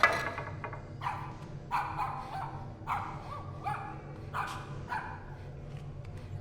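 A dog barking in short separate barks, about six in five seconds, over a low steady hum.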